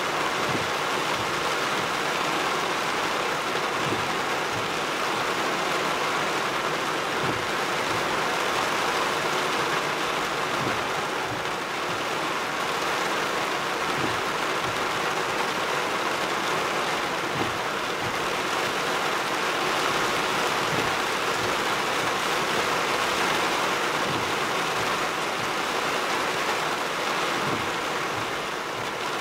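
Heavy downpour falling on a truck's roof and windshield, heard from inside the cab as a steady rush. A windshield wiper sweeps across about every three and a half seconds.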